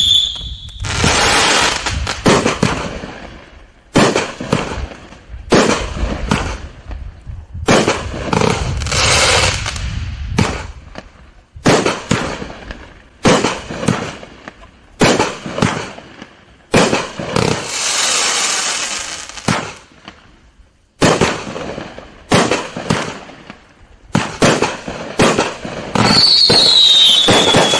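A 40-shot, 500-gram consumer fireworks cake firing: launch thumps and bursts in rapid clusters all through. There is a couple of seconds of steady hiss a little past the middle, and a falling whistle near the end.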